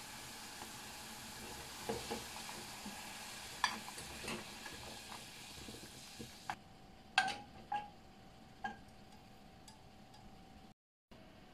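Sauce boiling and sizzling in a saucepan as a cube of butter melts into it, with a few light clinks. The sizzling cuts off suddenly about two-thirds of the way through, and a few sharp clinks of the pan follow.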